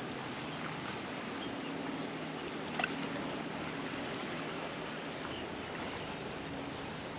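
Steady rush of river current flowing out below a dam, with a faint low hum under it and a single short click about three seconds in.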